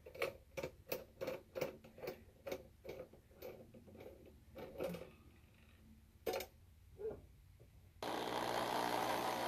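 A fast run of light clicks and ticks, about three a second, that thins out after about five seconds, with a couple of louder single clicks later. A steady rushing noise starts abruptly about a second and a half before the end.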